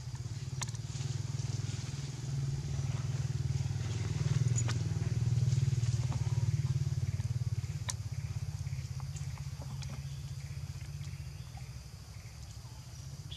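A small engine running with a low, even pulse, growing louder around the middle and fading toward the end. A few sharp clicks sound over it.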